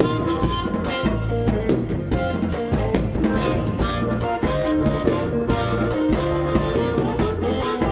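Live rock and roll band playing an instrumental break without vocals, drums keeping a steady beat under the guitar.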